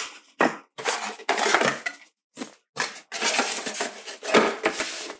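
Cardboard packaging being handled as a small box is unpacked: the cardboard insert and paper manuals scraped and rustled as they are pulled out, in a run of irregular bursts with brief pauses.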